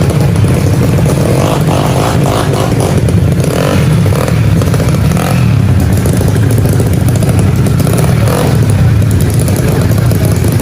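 Tuned 155 cc automatic scooter drag-race engines running loudly and steadily.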